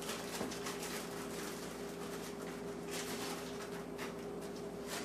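Quiet kitchen room tone with a steady low hum, and a few faint soft taps and rustles as almond meal is measured out and added to a mixing bowl.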